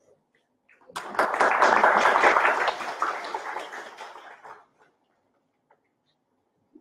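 A small roomful of people applauding. It starts suddenly about a second in and dies away over about three and a half seconds.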